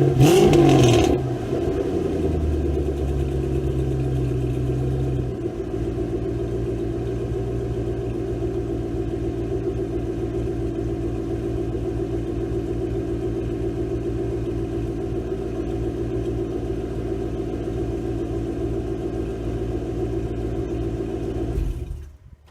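Ford Mustang engine idling, with a brief rev in the first second before the idle settles. The idle note changes about five seconds in. The engine then runs steadily until it is switched off just before the end.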